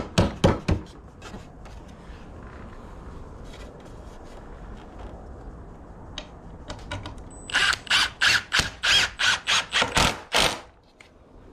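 Cordless power driver driving screws through 1x2 rails into the desk legs. There are a few sharp clicks at the start, then near the end a run of about ten loud, sharp rattling strokes, three or four a second, which then stops.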